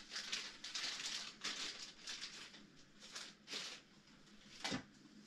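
Faint off-camera rustling and handling noises: a run of short, irregular hissy rustles and one sharper click near the end, as a small plastic pipette is fetched.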